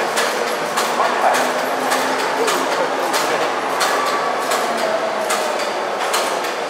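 Overhead travelling crane moving along its runway: a steady running noise with a faint low hum and many irregular sharp clicks and clanks.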